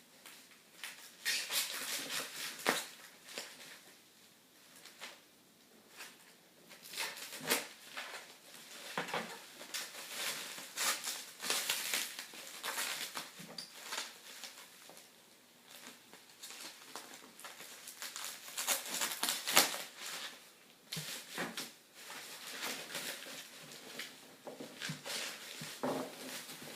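Cardboard box and packing material being handled while unpacking: irregular rustling and scraping with scattered knocks and clicks.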